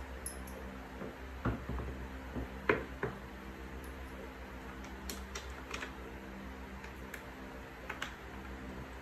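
Panther gaming chair armrest and seat being fitted together by hand: scattered light clicks and knocks of plastic and metal parts, the sharpest about a third of the way in, over a steady low hum.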